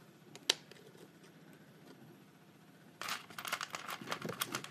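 One light click, then from about three seconds in a quick run of small clicks and rustling: precut pieces of art glass being handled and picked through.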